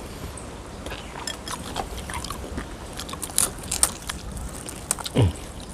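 Close-up eating sounds: crunchy bites and chewing of fried food, with scattered sharp clicks and crackles. A short sound falling steeply in pitch comes just after five seconds in.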